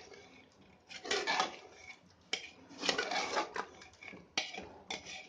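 Metal ladle scraping and clinking against the inside of a pressure cooker as thick korma masala and mutton are stirred and fried, in about six irregular strokes.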